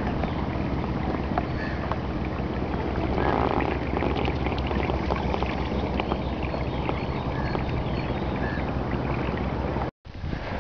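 Inflatable boat under way: water splashing and lapping against the hull, with a steady low rumble and wind on the microphone, and scattered small ticks and splashes.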